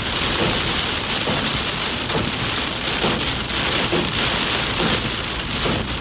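Heavy rain drumming on a car's windshield and roof, heard from inside the moving car as a steady, dense hiss.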